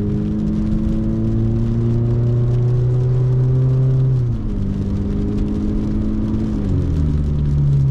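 Car engine pulling under acceleration, its pitch climbing steadily and then dropping twice, about four seconds in and near the end, as the transmission shifts up.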